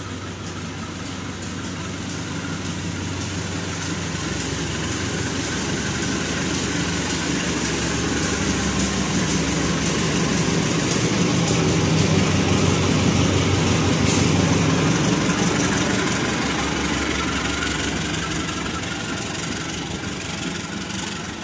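Diesel-electric locomotive CC 201 (a GE U20C type) pulling out and passing close by with its coaches, the engine running steadily under load. It grows louder toward the middle as the locomotive goes by, then fades as the coaches roll past on the rails.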